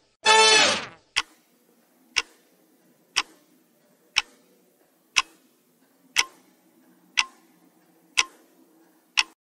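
Countdown-timer tick sound effect: a single sharp tick once a second, nine ticks in all. A short electronic tone sounds just before the ticks begin.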